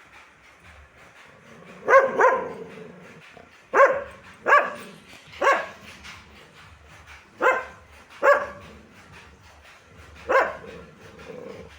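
A dog barking: about eight short barks, single or in quick pairs, spaced irregularly, beginning about two seconds in.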